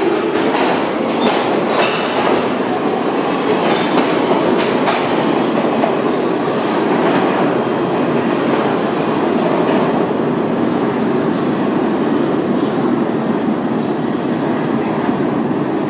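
R46 subway train rolling along the track through an underground station with a steady loud rumble. Its wheels clatter over the rail joints in repeated clicks through the first few seconds.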